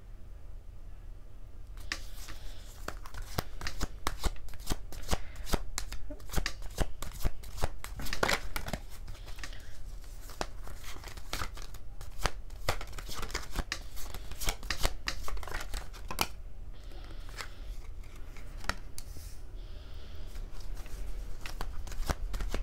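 A tarot deck being shuffled by hand: a dense, continuous patter of card clicks starting about two seconds in, over a steady low hum.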